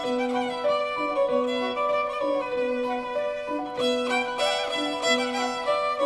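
Instrumental background music: a melody over a low two-note figure that repeats about every second and a quarter, with a note held underneath throughout.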